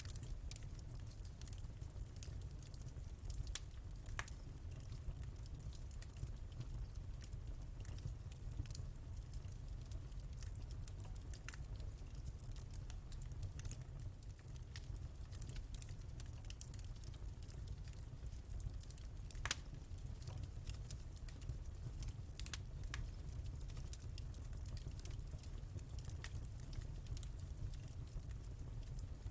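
Wood fire in a fireplace crackling: small sharp pops at irregular moments over a steady low rumble, with one louder pop about two-thirds of the way through.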